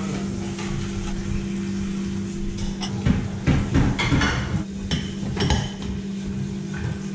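Dishes, bowls and cutlery clinking and clattering as they are washed and dried at a kitchen sink, with a steady low hum underneath.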